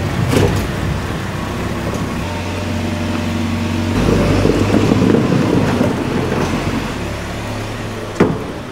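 Diesel engine of a John Deere loader running steadily while its bucket scrapes and pushes wet muck across concrete, getting louder from about four seconds in as the bucket drives into the muck heap. A single sharp knock near the end.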